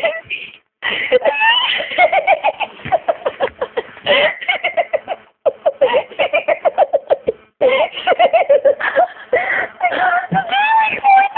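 Girls laughing in long fits of rapid giggles, breaking off briefly a few times.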